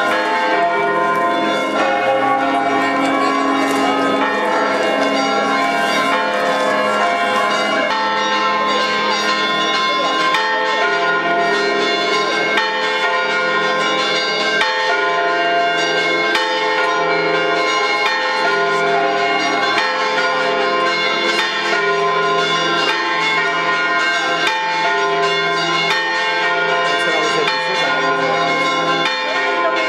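Church bells ringing a rinterzo, the festive Umbrian peal, with several bells striking over one another in a continuous clangour. About eight seconds in the sound turns duller.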